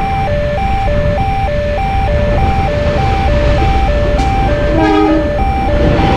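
Railway level-crossing warning siren sounding a steady two-tone alarm, a high and a low note alternating about three times a second, over a loud low rumble. A short horn blast sounds about five seconds in.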